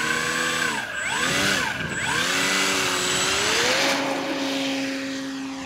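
Electric motor and propeller of a ParkZone Extra 300 RC plane running with a whine: the pitch drops and recovers twice, then rises and holds steady at high throttle for the take-off run, fading as the plane moves away near the end.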